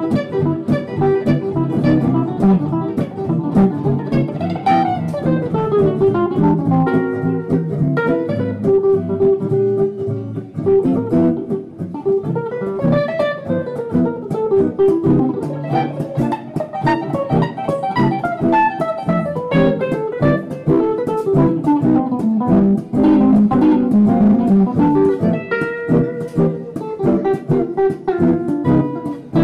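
Two acoustic guitars playing blues together, plucked notes over a steady accompaniment, with quick runs of notes climbing and falling in pitch several times.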